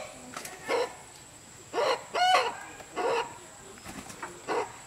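Chickens calling: several short clucks and one longer two-part call about two seconds in.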